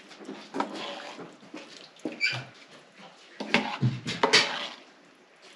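Metal ladle stirring, scraping and knocking in a pot of thick yogurt soup (ash), with liquid slopping as it is scooped. It makes an irregular run of clinks and scrapes, loudest between about three and a half and four and a half seconds in.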